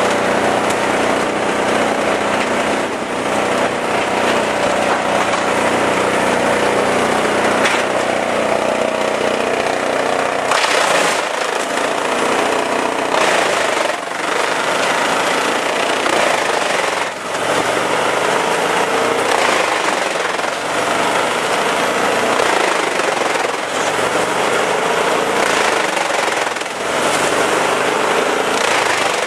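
Chainsaw engine running at high revs, loud and continuous, with its pitch shifting and wavering as the saw works through the cut.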